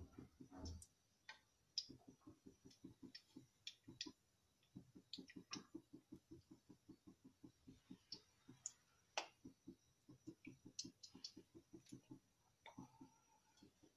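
Desi ghee heating in an aluminium kadai, bubbling and crackling faintly: soft pops about four or five a second with scattered sharper crackles.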